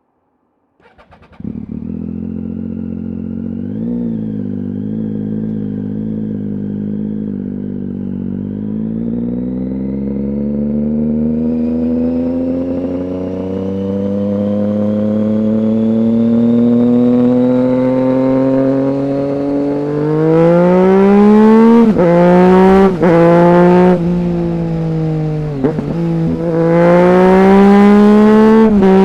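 2008 Triumph Street Triple 675's three-cylinder engine through a Roadsitalia aftermarket exhaust with one of its two dB killers fitted: it starts about a second in, runs steadily, and its pitch climbs slowly as the revs are raised. Later come several quick throttle blips, with rises and sharp drops in pitch, then a long rev up near the end.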